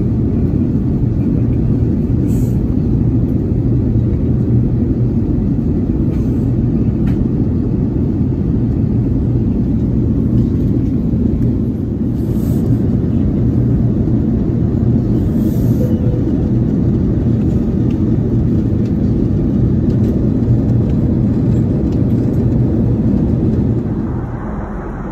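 Steady low rumble of cabin noise inside a British Airways Airbus A380 in flight, with a low hum under it. It dips briefly about halfway through and drops in level near the end.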